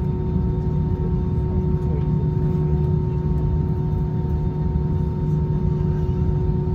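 Steady drone inside an Airbus A320 cabin on the ground: a low rumble with a constant hum carrying two steady tones, neither rising nor falling.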